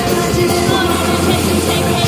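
Live pop music played loud over a concert sound system.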